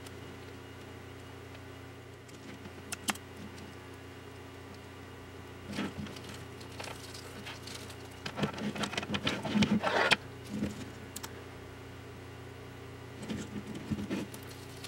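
Handling noise from a self-adhesive LED light strip being wrapped around a plastic lamp core: scattered taps and rustles, with a burst of crinkling from about eight to ten seconds in as the strip's backing liner is peeled away. A steady low hum runs underneath.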